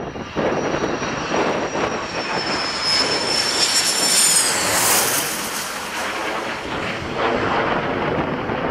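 A MiG-29's twin Klimov RD-33 turbofans on landing approach, passing low overhead: a steady jet rush with a high turbine whine that drops in pitch as the jet goes by, about four and a half seconds in.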